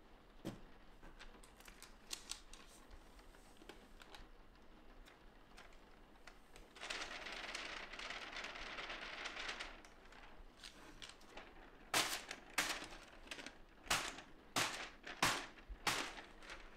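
Handling a printed sheet of screen-print transfer paper dusted with transfer-glue powder. Light paper rustles and small clicks, then a steady hiss for about three seconds as the excess powder slides off the sheet into a plastic jar, then a run of sharp paper snaps and taps near the end as the sheet is shaken and tapped to knock off the remaining powder.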